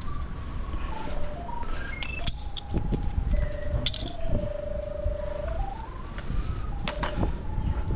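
Pipe locator receiver sounding a steady tone that steps up and down in pitch as it is swept over a drain camera's sonde in a buried stormwater pipe, with a few handling clicks, a short hiss about halfway through and low wind rumble underneath.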